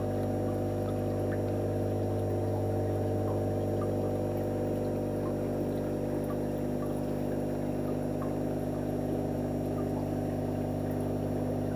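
Steady electric hum of aquarium pumps running, with a faint trickle of water.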